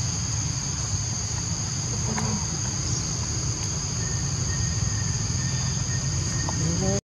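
A steady, high-pitched insect chorus of crickets or cicadas over a low, steady rumble.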